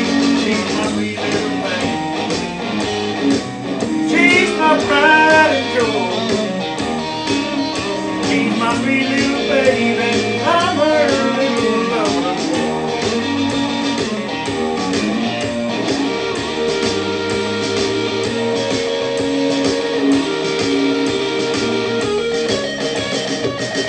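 Guitar playing a blues passage, its lead line bending strings twice, a few seconds in and again about halfway, over steady sustained notes underneath.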